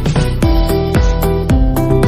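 Upbeat background music with a steady beat, a deep drum hit about every half second under held pitched notes.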